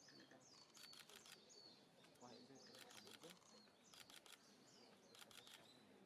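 Camera shutters clicking in rapid bursts of several clicks at a time, a burst every second or two, with faint small-bird chirps between them.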